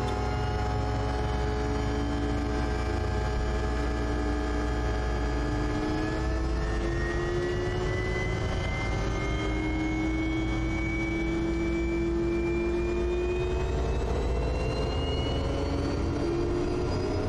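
Quest Kodiak's Pratt & Whitney PT6A turboprop engine starting: a whine that rises slowly in pitch as the gas generator spools up after light-off, over a steady low hum, with the propeller beginning to turn.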